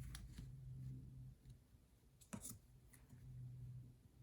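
Near silence: faint room tone with a low steady hum and one soft click a little over two seconds in.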